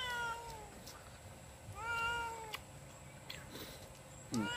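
A cat meowing three times, each meow drawn out and falling slightly in pitch: one at the start, one about two seconds in, and one near the end.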